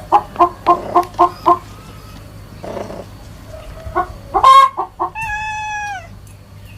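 Chickens clucking: a quick rhythmic run of clucks, about three or four a second, stops about a second and a half in. A few louder squawks follow around the middle, then one long held call that drops in pitch as it ends.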